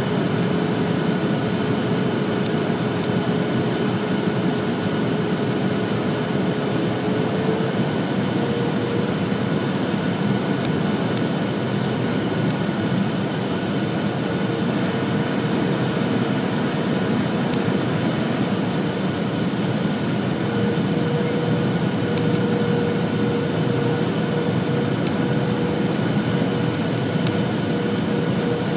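Airliner cabin noise on approach to landing: a steady rush of engines and airflow, with a hum that rises slightly in pitch about seven seconds in and again near twenty seconds.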